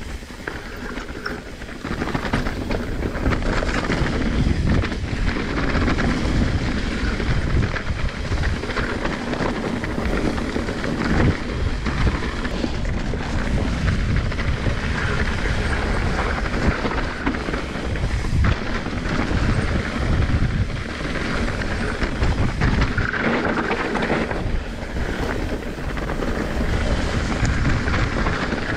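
Wind buffeting the microphone of a mountain biker's action camera, with the bike's tyres rumbling over a dirt trail and scattered knocks and rattles from the bike, louder from about two seconds in as the ride picks up speed.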